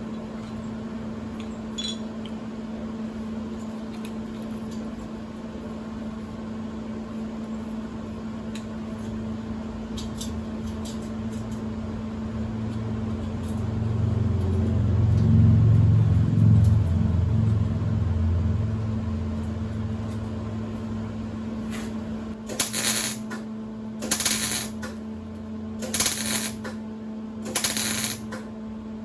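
Welding on a steel roof-rack bar: a steady electrical hum, with a low rumble that swells and fades in the middle, then about five short crackling bursts roughly two seconds apart near the end, typical of tack welds.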